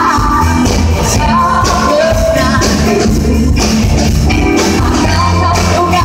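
A live pop-rock band playing loud through a PA: female lead vocals over drums, electric bass, electric guitar and keyboard.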